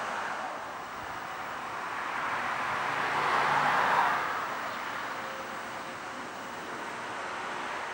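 Background road-traffic noise, an even rushing that swells to its loudest about three to four seconds in as a vehicle passes, then eases back.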